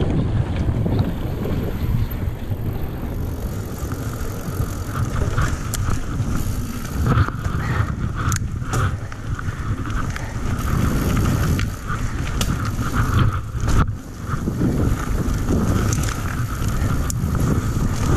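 Yeti SB150 mountain bike descending a dirt trail at speed: wind rushing over the camera microphone and the tyres rolling on dirt, with sharp clicks and rattles from the bike over bumps.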